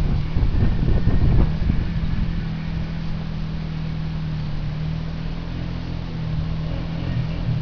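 ATV engine running steadily at a constant pitch as it drives across a field. A low, uneven rumble sits on top of it for the first second and a half.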